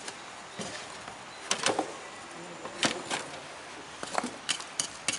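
Irregular sharp knocks and gritty scrapes of packed moulding sand being broken away from a freshly poured metal casting in its sand mold. They come in a few clusters, a quicker run of knocks near the end.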